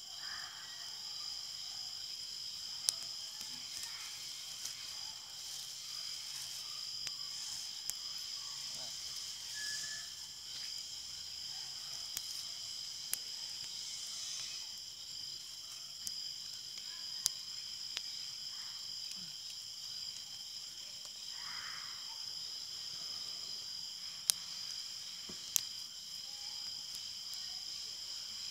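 Steady, high-pitched chorus of crickets and other insects, with scattered sharp clicks, the loudest two near the end.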